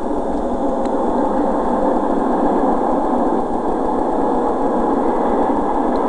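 Steady, heavily distorted rumble of vehicle engines idling.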